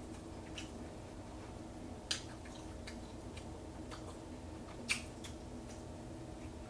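A person chewing pizza with soft, scattered mouth clicks and smacks, two of them sharper, about two and five seconds in, over a steady low hum.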